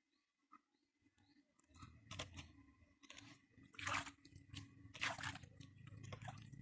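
Irregular squelching and splashing as hands work through wet mud and water, in a few sharp bursts over a low rumble that sets in after about a second and a half.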